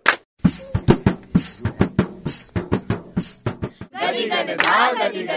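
A group of performers claps hands in a quick, uneven rhythm, with deeper thuds mixed in. About four seconds in, their voices come in together, chanting in unison.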